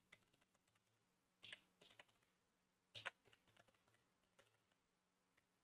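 Faint, scattered keystrokes on a computer keyboard as an email address is typed, with a few separate clicks.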